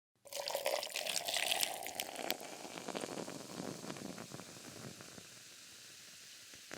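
Soda being poured and foaming up: a pouring stream for about two seconds, then the crackling fizz of bubbles that slowly fades away.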